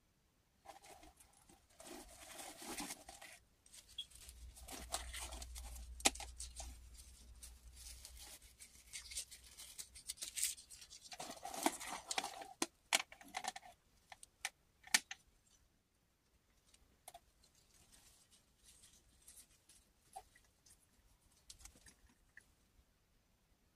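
Handling noise from a black hard-shell box bag and its fabric strap: rustling and scraping with sharp clicks, busiest through the first fifteen seconds, then only a few light taps.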